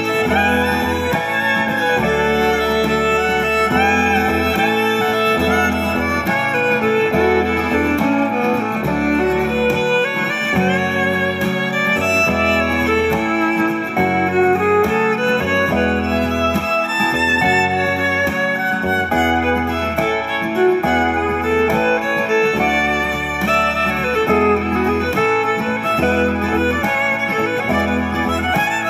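Background instrumental music: a melody line with sliding pitches over a bass line that changes note every second or two.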